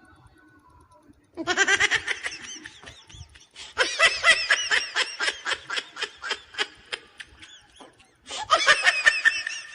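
A person laughing in three fits, the middle one longest, each a quick run of high-pitched pulses.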